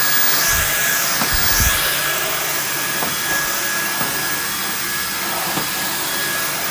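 Dyson V10 cordless stick vacuum cleaner running steadily: a strong airflow hiss with a thin, steady high motor whine, and a few low knocks in the first couple of seconds as the head is handled.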